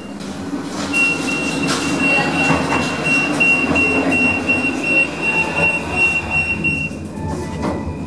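Paris Metro line 2 train at the elevated platform, running with a steady high squeal from about a second in until near the end.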